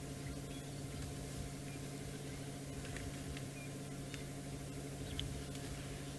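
Steady low hum of a stationary safari vehicle's engine idling, with a few faint short clicks and brief high chirps over it.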